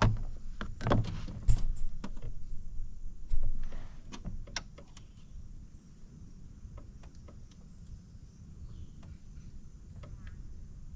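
Clicks and knocks of fishing gear being handled in a kayak while a tangled line is worked on, loudest and busiest in the first few seconds, then thinning to scattered light clicks.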